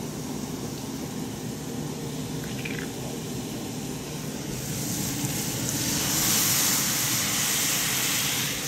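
Stir-fry of vegetables and protein sizzling steadily in a hot Finex cast iron skillet. About halfway through, soy sauce poured into the pan hits the hot iron and the sizzle swells into a loud hiss of steam.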